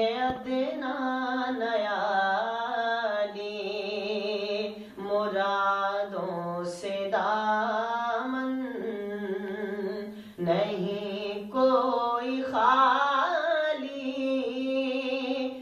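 A young man singing a naat, an Urdu devotional song, solo in long wavering melodic phrases, with short pauses for breath between lines.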